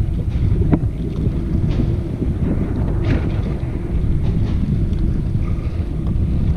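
Wind buffeting the microphone in a steady low rumble, with a brief splash of water about three seconds in as a fish is released over the side of the boat.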